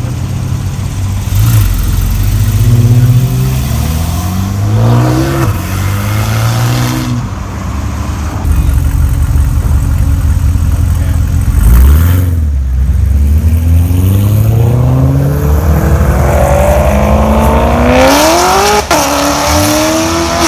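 Car engines revving and accelerating hard, the engine note climbing in several long pulls, the longest in the second half. Near the end one pull breaks off with a sharp crack, drops in pitch and climbs again.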